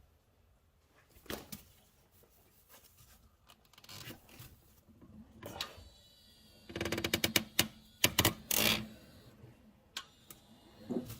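Creaking and clicking from a VW Golf R Mk7's front suspension as the steering wheel is turned, the noise traced to a worn strut mount bearing. Scattered creaks at first, then a dense run of rapid creaks and clicks about two-thirds of the way through.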